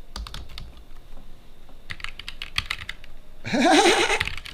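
Typing on a Roccat Vulcan TKL Pro keyboard with linear Titan optical switches: quick runs of key clacks. About three and a half seconds in, a short voice sound, louder than the typing, cuts across the keystrokes.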